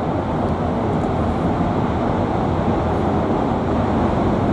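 CASA CN-235 transport passing overhead, the drone of its twin turboprop engines swelling at first, then holding steady and loud.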